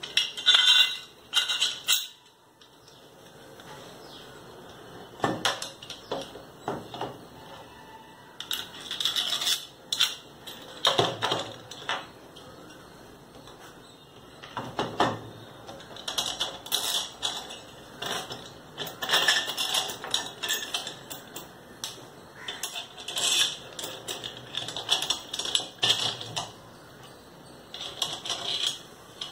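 Metal washers and bushes clinking and clattering against each other and a threaded rod as they are fitted on, in irregular bursts of light clinks with short pauses between.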